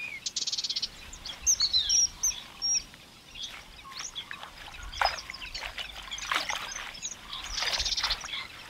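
Small birds chirping, with quick high trills near the start and again near the end. From about five seconds in, water splashes and sloshes as leafy amaranth greens are soaked and rinsed by hand.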